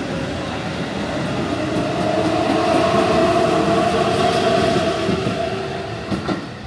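Keihan electric train running through the station: a steady rumble of wheels and running gear with a faint whine, growing louder to a peak about three seconds in and then fading. A couple of sharp clicks sound near the end.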